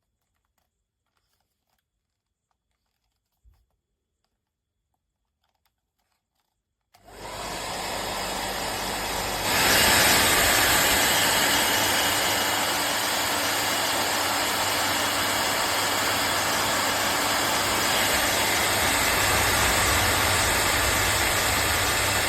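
Near silence, then about a third of the way in the AINA ionic hair dryer is switched on and runs with a steady rush of air over a low motor hum, stepping up louder a couple of seconds after starting and holding there.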